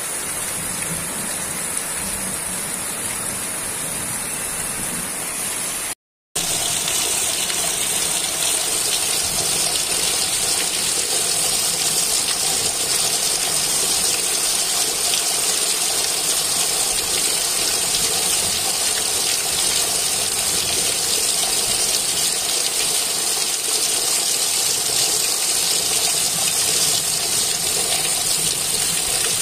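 Heavy rain falling, with rainwater pouring off a roof edge in streams as a steady rushing wash. About six seconds in the sound drops out for a moment and comes back louder.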